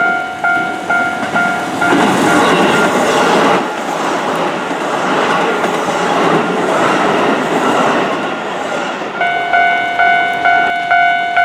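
Japanese level-crossing warning bell dinging about twice a second while a Keihan Electric Railway train passes. For about seven seconds the train's wheel and rail noise drowns the bell, which is heard ringing on once the train has gone by.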